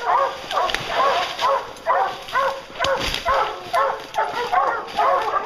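English bear hounds baying in a steady rhythm, about two barks a second, while on a black bear.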